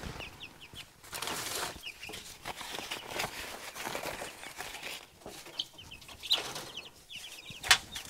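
Young Rhode Island Red chicks peeping in short high calls, in little runs, over the rustling of sheets being handled and laid on the brooder tray. A sharp knock near the end.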